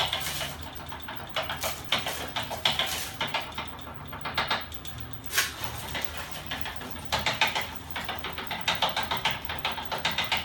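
Homemade magnet-and-electric-motor reciprocating machine running, its moving linkages clattering in fast bursts of ticks over a low steady hum.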